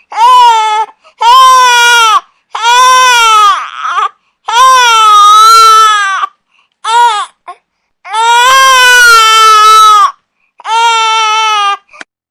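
Infant crying loudly in a string of high-pitched wails, about seven in all, each up to about a second and a half long with brief silent breaks between them.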